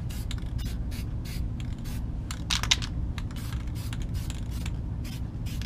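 Aerosol spray-paint can hissing in short repeated bursts as black paint goes onto a steel ATV wheel rim, with a longer, louder burst about two and a half seconds in, over a steady low rumble.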